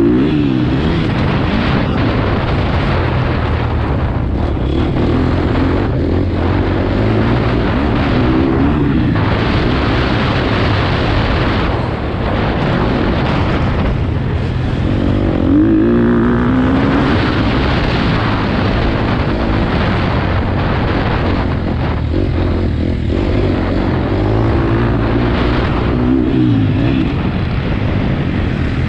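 Motocross dirt bike engine revving up and falling back again and again as it is ridden hard around the track, the pitch climbing and dropping several times. A rough rushing noise runs under it, wind buffeting the helmet-mounted microphone.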